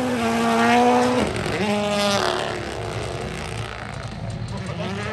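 Toyota GR Yaris Rally1 car's turbocharged three-cylinder engine held at high revs in a drift. The steady tone breaks off about a second in, revs up again briefly, then fades as the car moves away, with the engine note held steady once more near the end.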